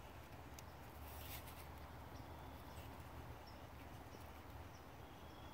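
Faint outdoor background: a steady low rumble with a few faint, short high chirps and a couple of light clicks.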